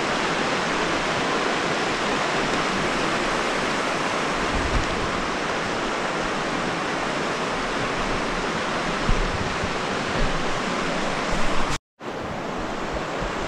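Steady rush of the Virgin River's flowing water through the canyon, with wind buffeting the microphone in a few low gusts. The sound cuts out for an instant near the end, then carries on slightly quieter.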